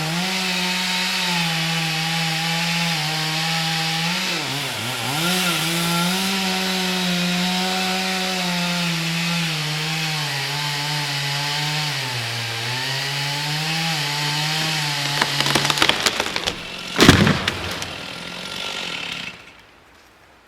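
Chainsaw running in a cut, its engine note dipping under load and recovering several times, then stopping about 16 s in. Wood cracks, and about a second later a single loud crash of falling timber comes, the loudest sound here.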